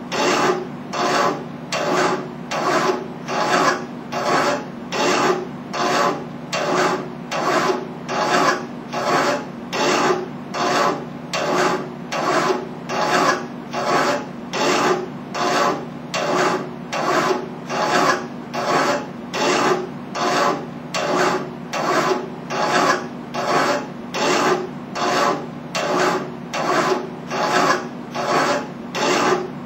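Hand file rasping back and forth across a metal tube clamped in a bench vise, in an even rhythm of about three strokes every two seconds.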